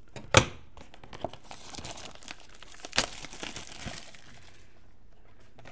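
Packaging of trading card hobby boxes being torn open, crinkling and tearing, with a sharp snap about half a second in and another about three seconds in.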